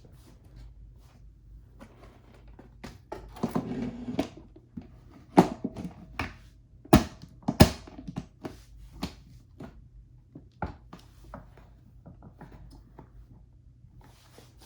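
Metal clicks, a scraping rattle and several sharp knocks from a 1923 Remington Portable No. 2 typewriter being handled as its type bars are lowered. The rattle comes a few seconds in, and the loudest knocks a little after the middle.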